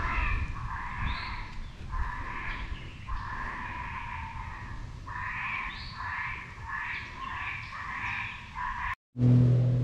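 Wild animal calls repeating one after another, each rough call lasting up to about a second, with only short breaks between them.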